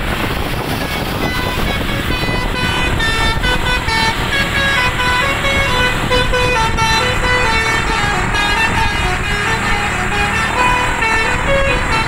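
Tour bus telolet horn playing a quick tune of short notes stepping up and down, starting about a second in, over the steady rumble of scooters and road traffic.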